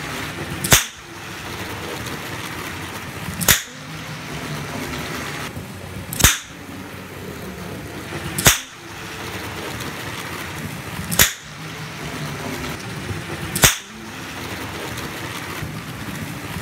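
Tri-ang RT.267 fog signal firing toy caps as a model train passes: six sharp cracks, one every two to three seconds. Between the bangs the model train runs with a steady rumble of its motor and wheels on the track.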